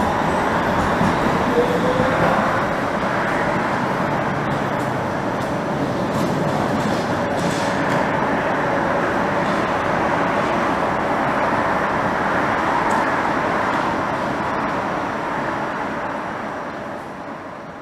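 Copenhagen Metro driverless train (AnsaldoBreda Driverless Metro) running along the track: steady wheel-on-rail running noise, with a faint rising whine from the electric drive about a second in. The sound fades out near the end.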